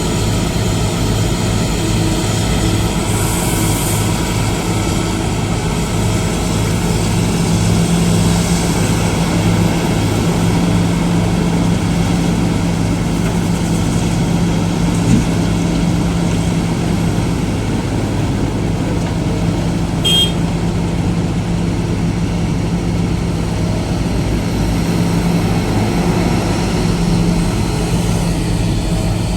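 Diesel engine of heavy earthmoving machinery, an excavator or dumper truck, running steadily under work with a low, even throb.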